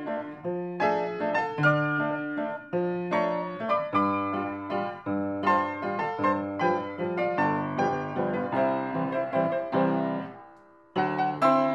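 Background piano music, notes struck one after another in a steady beat. It dies away about ten seconds in and starts again a second later.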